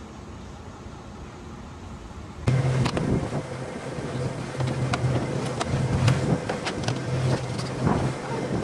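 Faint outdoor ambience, then about two and a half seconds in a motorboat's engine running steadily with a low hum, wind buffeting the microphone and a few sharp clicks.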